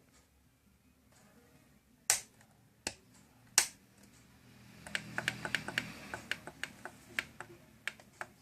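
Clicks from a Sony ICF-C1 clock radio being handled and its buttons pressed: three separate sharp clicks, then a quick run of lighter clicks for about three seconds.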